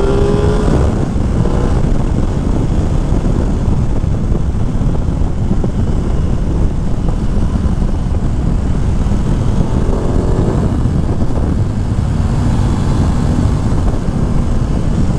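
2021 Aprilia Tuono 660's parallel-twin engine on its standard exhaust, pulling hard under acceleration. Its note rises just at the start and again about ten seconds in, under a heavy, steady rush of wind on the microphone.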